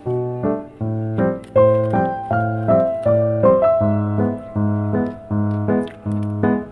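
Background music: a light, bouncy electric-piano tune with a bass line, notes and chords changing about twice a second.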